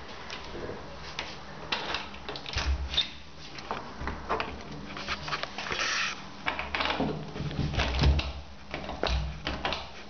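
A bathroom door being pushed shut and its latch worked: a run of irregular clicks, knocks and rubbing, with a few dull thumps, the loudest about eight seconds in.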